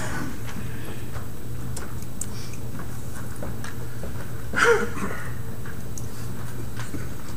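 A steady low electrical hum under faint room noise and scattered small clicks, with one short higher-pitched sound a little past halfway through.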